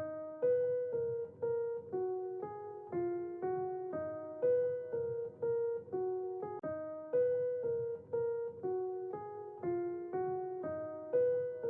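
Background music: a gentle piano melody of evenly paced notes, about two a second.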